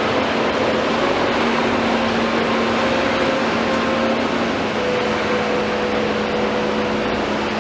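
Komatsu PC210 excavator's diesel engine and hydraulics running steadily while it loads a truck, a continuous machine noise with a steady hum.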